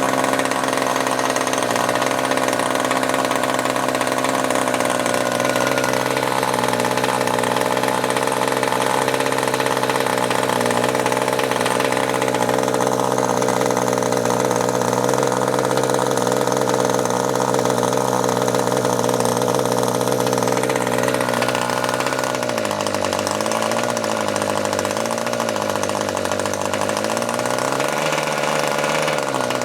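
OS MAX .40 two-stroke model glow engine running on the bench, a steady, loud buzzing note. Near the end its speed wavers, dipping and picking up again a few times. This is the once-seized engine, freed and rebuilt, running again.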